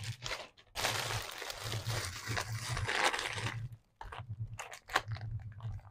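Crinkly cellophane and plastic packaging rustling as goods are pulled out of a gift hamper: a dense stretch of about three seconds, then scattered crackles.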